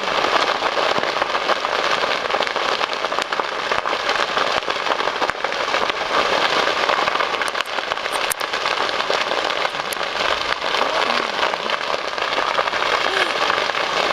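A large grass and brush fire burning steadily with a dense crackle, scattered with sharper pops.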